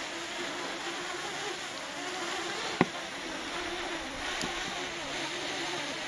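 Quadcopter drone's propellers humming steadily, with a single click about three seconds in.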